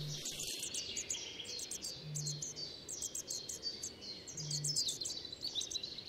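European robin nestlings giving rapid, high-pitched begging chirps from the nest, with a soft low hum three times, about two seconds apart.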